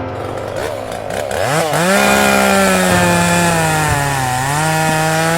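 Two-stroke chainsaw idling, then revved up about a second and a half in and held at high revs with a brief dip.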